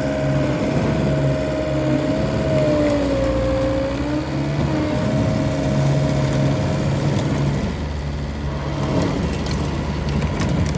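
John Deere 333E skid steer loader's diesel engine running, with a whine over it that wavers slightly in pitch and stops about three-quarters of the way through.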